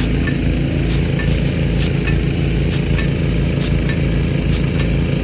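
Small gasoline engine running steadily at a constant speed while driving a water pump. Short sharp ticks come about once a second.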